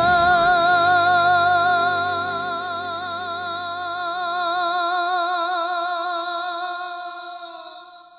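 A male pop singer holding one long high note with a wide, even vibrato over a backing track. The backing's low notes drop out about halfway, and the held note fades away near the end.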